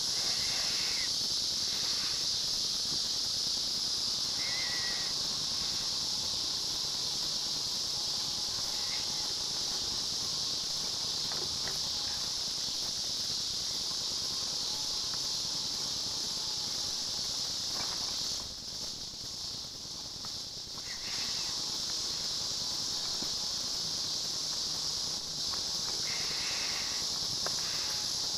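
Steady high-pitched insect chorus, dipping briefly about two-thirds of the way through, with a few short chirps over it.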